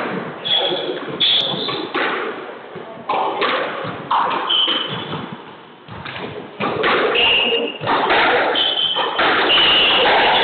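Squash ball thudding off the court walls and being struck by rackets, again and again, with short squeaks of court shoes on the wooden floor. There is a brief lull about halfway through.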